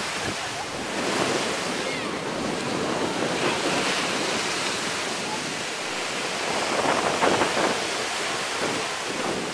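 Small ocean waves breaking and their white water washing up the beach, a steady rushing surf that swells about a second in and again around seven seconds.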